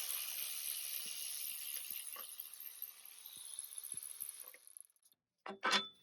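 A steady hiss with a few faint clicks over it, fading out about five seconds in, followed by a short clatter near the end.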